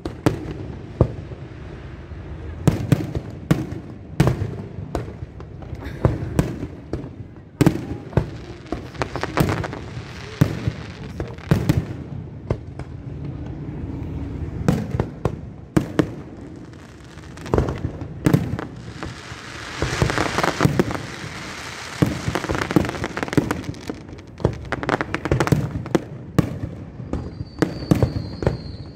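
Fireworks going off in rapid succession: many sharp bangs with crackling in between, a denser stretch of crackle about two-thirds of the way through, and a steady high whistle near the end.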